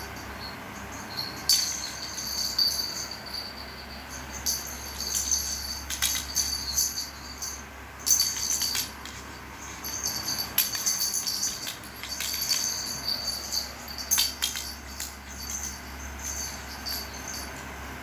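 Small jingle-bell toy jingling and rattling in irregular bursts as a cat bats it about, with light clicks between the jingles.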